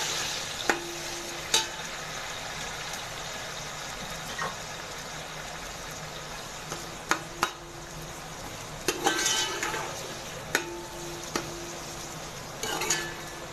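Sliced onions sizzling in hot oil in a metal pot, stirred with a spatula that knocks and scrapes against the pot every few seconds.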